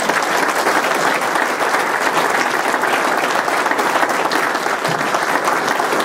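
An audience applauding steadily, a dense clatter of many hands clapping.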